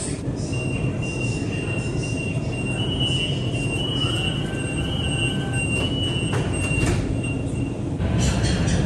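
Kunming Metro Line 5 subway car standing at the platform with a steady low rumble, while a high warning tone beeps for a few seconds as the doors close. The doors then shut with a couple of knocks, and the car grows louder near the end.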